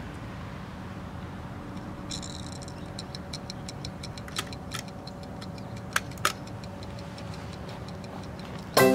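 Spring-wound release timer on a Havahart Safe Release cage trap's door, its dial turned by hand and then ticking steadily as it counts down, with a few louder clicks among the ticks.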